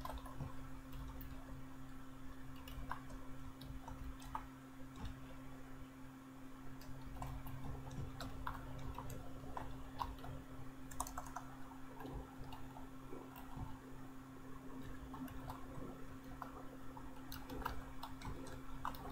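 Typing on a computer keyboard: irregular, quick key clicks, over a steady low hum.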